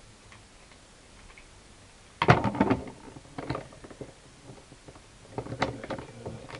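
Plastic tiles of a Rubik's Magic folding puzzle clacking as it is folded and flipped: a loud clatter about two seconds in, then scattered lighter clicks and another cluster near the end.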